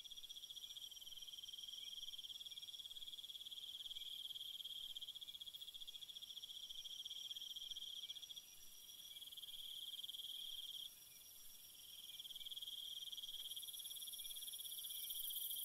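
Insects chirring: a faint, steady, high-pitched trill of rapid pulses. It dips briefly twice in the second half.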